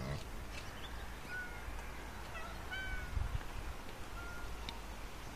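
Faint, scattered bird chirps over a low steady background rumble.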